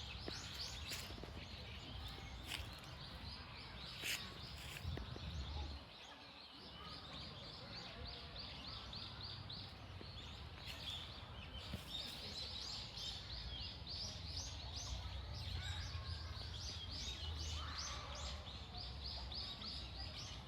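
Small songbirds chirping in rapid runs of short, high notes, over a steady low background rumble. A few sharp clicks come in the first few seconds.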